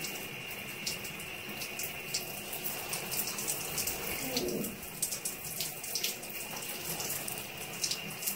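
Shower running, its spray pattering onto wet hair and the tiled stall, with many small sharp splashes on top of a steady hiss.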